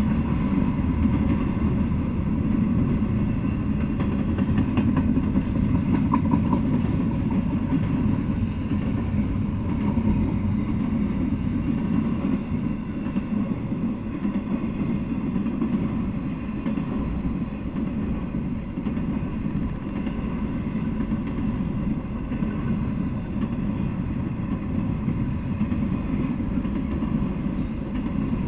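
Intermodal freight train of flatcars loaded with truck trailers rolling past close by: a steady rumble of steel wheels on the rails.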